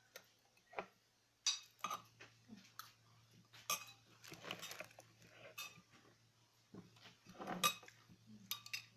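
Spoon and fork clinking and scraping against a ceramic plate while eating, in scattered irregular clicks with the loudest a little before the end, over a faint steady low hum.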